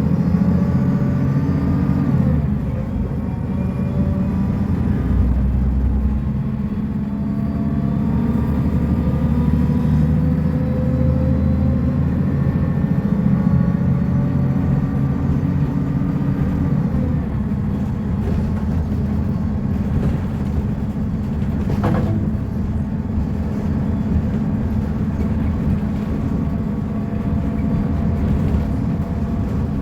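Mercedes-Benz O500U city bus engine running steadily with a low rumble while the bus drives, faint whining tones rising and falling with its speed. A single sharp click comes about two-thirds of the way through.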